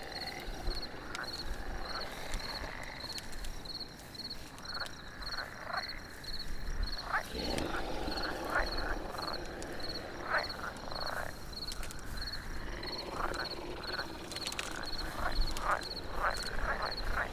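Night forest ambience: frogs croaking in short, repeated calls over a steady, evenly pulsed high insect chirping.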